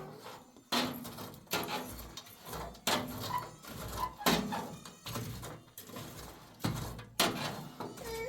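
A series of dull knocks, about one a second, each dying away quickly.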